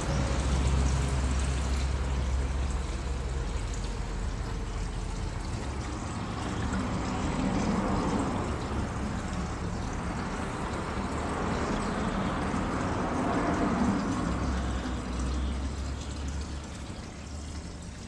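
Shallow water sloshing and lapping in an inflatable paddling pool as a plastic tray is moved through it, swelling twice, with a steady low rumble underneath.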